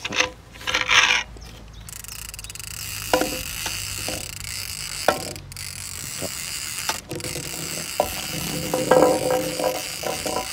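Large conventional trolling reel being cranked to wind line onto its spool: a steady mechanical whirr of its gears and ratchet, with a few sharp clicks along the way.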